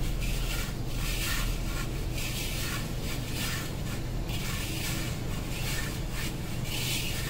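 A hand rubbing and scraping crumbly browned khoa and powdered sugar against the bottom of a metal kadhai while mixing, a rough gritty sound in repeated strokes, over a steady low hum.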